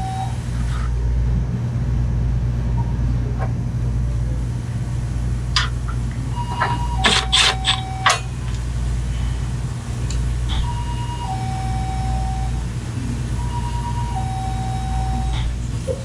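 Steady low hum with a two-note falling electronic tone that repeats about every four seconds, and a short cluster of sharp clicks and knocks about six to eight seconds in from hands fitting parts.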